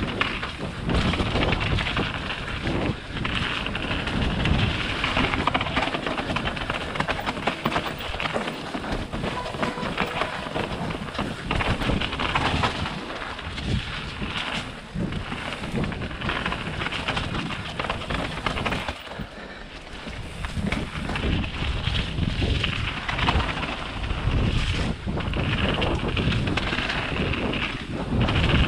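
Wind buffeting the microphone of a camera carried on a fast mountain-bike descent, a loud rushing noise mixed with rumble from the ride, surging and easing with a short lull about two-thirds of the way through.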